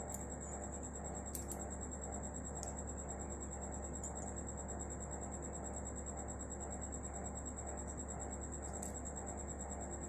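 Quiet steady hum with a faint high-pitched whine, broken by a few faint ticks as a small metal reverse light switch is handled.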